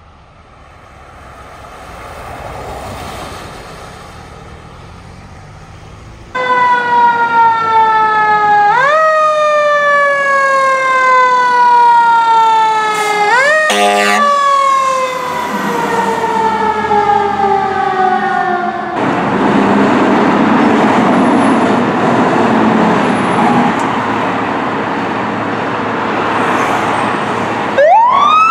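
Fire trucks responding. A faint road rumble, then a loud fire-engine siren that repeatedly jumps up quickly in pitch and slides slowly down. Around the middle there is a short horn-like blast, then a stretch of loud, even rushing noise, and near the end a siren wail rising steeply.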